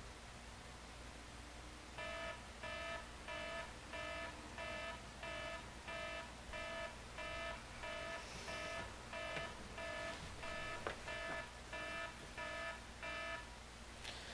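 A phone alarm beeping. It is a repeated electronic tone of several pitches at once, about three beeps every two seconds, starting about two seconds in and stopping shortly before the end. Bedding rustles near the end.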